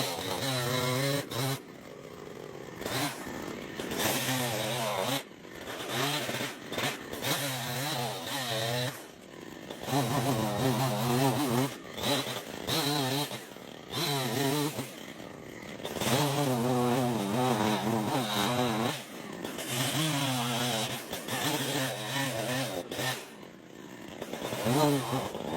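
Chainsaw engine running and revving as it cuts, its pitch rising and falling, broken off abruptly several times.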